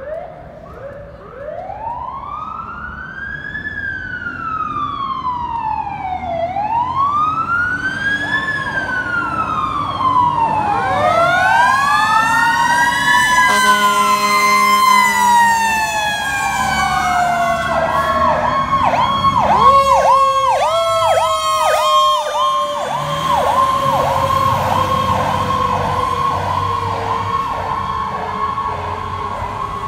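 Fire truck sirens: a siren wails in slow rising-and-falling sweeps and grows louder, more sirens join, and a short horn blast sounds about halfway. In the second half a fast pulsing yelp runs alongside a long, slowly falling siren tone.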